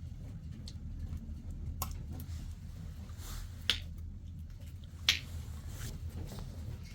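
Three sharp clicks or snaps, about two seconds in and near the middle and three-quarters through, over a steady low rumble.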